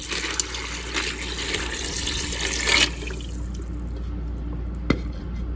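Water being poured into the Ninja Foodi's metal inner pot over dry penne and frozen meatballs. A heavy pour for about three seconds, then a lighter steady flow, with one sharp click about five seconds in.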